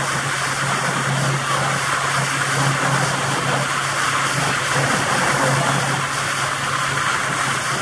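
Pontoon boat's motor running steadily under way, a constant low hum, with an even rush of water and air noise over it.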